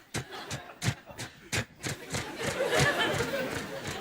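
Man making vocal sound effects into a microphone: a run of short, sharp clicks and knocks at irregular spacing, with a brief hissing, noisy stretch a little before the end.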